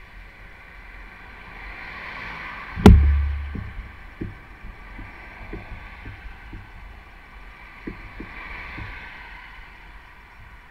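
Mountain bike riding over a trail, heard through a handlebar-mounted camera: steady rolling and wind noise, with frequent small knocks from the camera mount jarring on the handlebar. One loud thump about three seconds in as the bike jolts over a bump.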